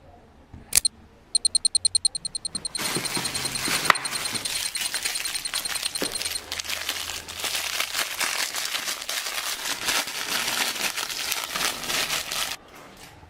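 A sharp click, then a quick run of short, high-pitched pulses. After that, about ten seconds of dense crinkling and crackling: plastic packaging being crumpled and torn open, which stops shortly before the end.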